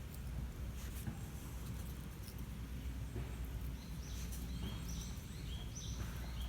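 A small bird giving short high chirps, several in quick succession in the second half, over a steady low background rumble, with a couple of faint sharp clicks near the start.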